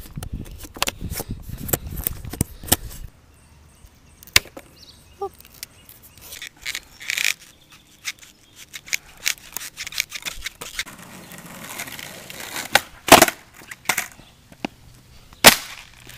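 Skateboard deck and wheels knocking against asphalt in a scattered series of sharp clacks from tail pops and landings, the two loudest near the end.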